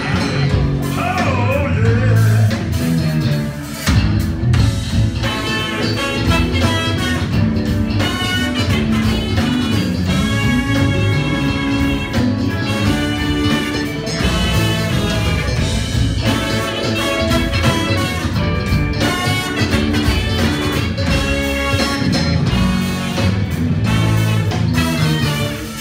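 Live band playing: drums, electric bass and electric guitar, with the saxophone and brass horn section playing a repeating melody line over them.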